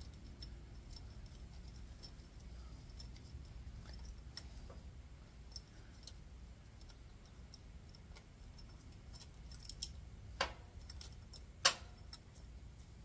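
Light, scattered metallic clicks and clinks as the 10 mm bolts of a Harley clutch pressure plate are run out by hand and with a ratchet. Two sharper clinks come near the end, over a faint low hum.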